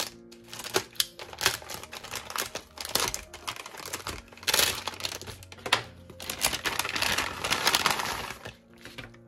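Packaging crinkling and rustling as a parcel is torn open by hand, with scattered sharp crackles and louder stretches of rustling about halfway through and near the end.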